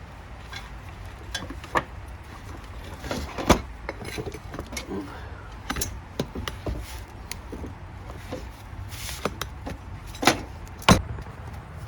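Scattered knocks, clunks and light metallic clinks as a car battery is lifted out of its tray in the engine bay and set down, the loudest knock about three and a half seconds in and two more near the end, over a steady low background rumble.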